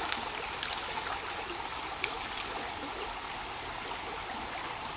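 Shallow creek water running steadily over a riffle, with a few short splashes near the start from a hooked trout at the surface.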